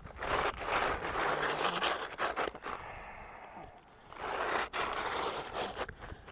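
Asphalt roofing shingles being handled and scraped against the roof surface: two stretches of rough scraping and rustling with scattered sharp clicks, separated by a quieter pause about three seconds in.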